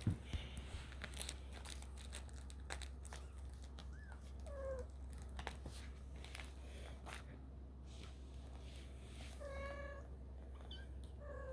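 Kittens about four and a half weeks old mewing: a short thin mew about four seconds in, another near ten seconds and a third near the end. Light scattered clicks run between them over a steady low hum.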